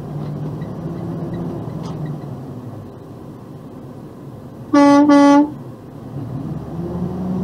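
Box truck's air horn sounding two short blasts back to back about five seconds in, one steady pitch each, over steady road noise.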